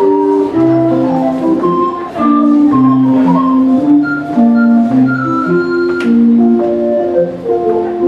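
Instrumental English country dance tune: a melody of held notes over a low bass note that changes every couple of seconds.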